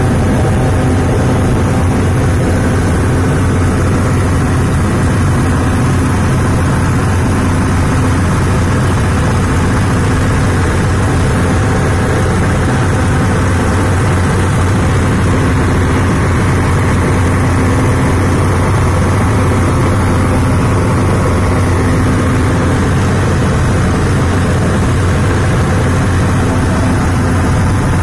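Heavy engine running steadily at one constant speed, a loud, even, deep drone with no change in pitch.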